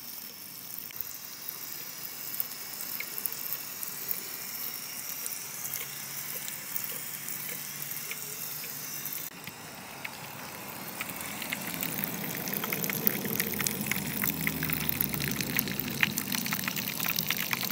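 Water spraying from a Thomas the Tank Engine toy lawn sprinkler onto grass: a steady hiss of spray with many small ticks of falling drops. It grows louder about halfway through, heard up close.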